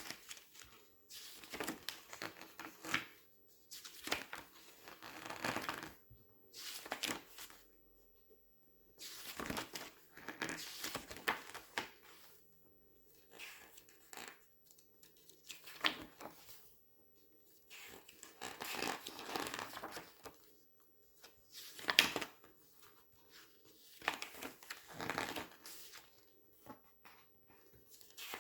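Glossy magazine pages being turned and squeezed: crinkly rustling in bursts of a second or two, with short quiet gaps between them and a sharper crackle about 22 seconds in.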